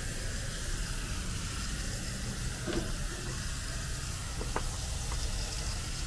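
Hose-end sprayer spraying water mixed with diluted coil cleaner onto an air-conditioner condenser's micro-channel coil: a steady hiss of spray.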